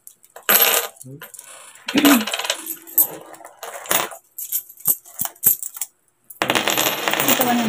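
Metal coins clinking and clicking as they are slid across a tabletop and stacked by hand. There are many sharp clicks, and a long stretch of continuous jingling near the end.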